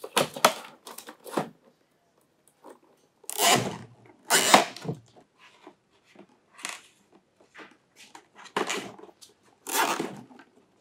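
Nylon zip ties being pulled through holes in cardboard boxes and tightened, heard as several short rasping bursts with quiet gaps between, along with cardboard being handled.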